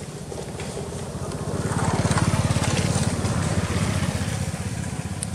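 A motor vehicle's engine running with a fast low pulsing, growing louder to a peak about two seconds in and then fading, like a vehicle passing by.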